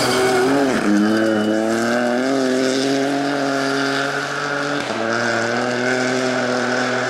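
Ford Fiesta Rally3 rally car's three-cylinder turbo engine running hard at high revs as it passes and pulls away; the engine note dips and climbs back at gear changes, once about a second in and again near five seconds.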